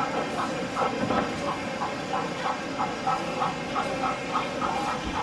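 Sound-fitted model steam locomotive chuffing slowly in an even rhythm, about four beats a second, over a steady background hum.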